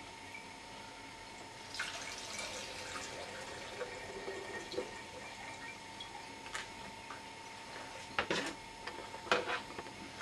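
Fermenting rhubarb must trickling and dripping through a fine mesh straining bag into a glass gallon jar, heard from about two seconds in. A few sharp knocks and clatters follow near the end.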